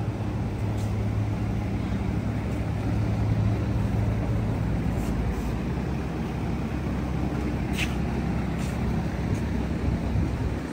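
Steady low hum of a vehicle engine running, with one sharp click about three-quarters of the way in.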